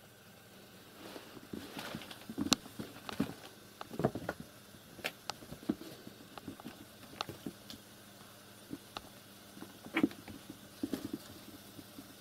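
Kittens chasing and wrestling on a rug: irregular light thumps and scuffles of their paws, with a few sharp clicks, starting about a second in.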